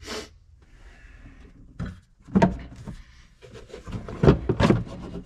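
Hard plastic blower/air-conditioning housing in a tractor cab being handled and shifted, giving scattered knocks and scrapes. There is a louder knock about two and a half seconds in and a cluster of louder knocks near the end.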